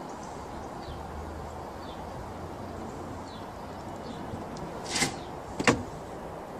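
A cat jumping down from the plastic lid of a water butt: a short scrape about five seconds in, then a sharp thump. Faint bird chirps come and go over the garden background.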